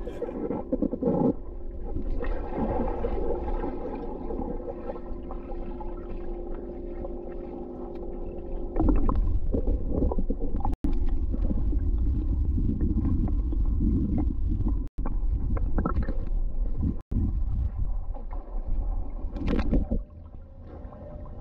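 Underwater sound of a swimming pool picked up by a submerged camera: a low rumble with water gurgling and a steady hum, getting louder about halfway through. Near the end it gives way to quieter above-water pool sound.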